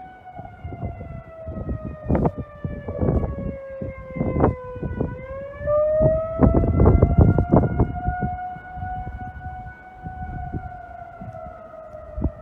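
Outdoor tornado warning siren wailing continuously, its pitch sagging to a low point about five seconds in and then rising again, under irregular loud low rumbles of wind gusting on the microphone.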